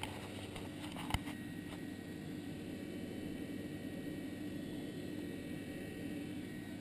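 A steady low hum with a constant faint tone, and one short knock about a second in.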